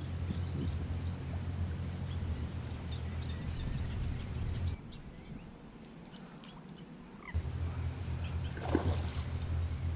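Electric trolling motor running with a steady low hum; it cuts out about five seconds in and starts again two to three seconds later.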